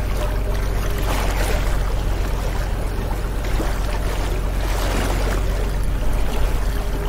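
Motorboat running on the sea: a steady low engine drone under the rush and splash of water, which swells now and then.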